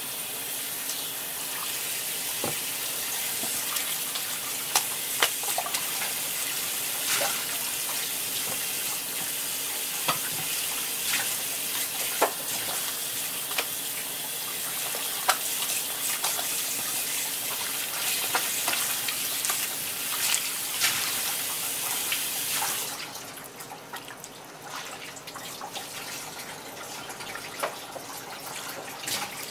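Water running from a kitchen spray hose onto a wooden cutting board as it is scrubbed with a cloth, with scattered small splashes and knocks. The water shuts off about three quarters of the way through, leaving light wiping and dripping.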